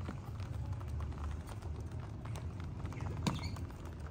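A crowd of rabbits moving about on a concrete floor: a patter of small, irregular clicks and taps, with one sharper click about three seconds in, over a low steady rumble.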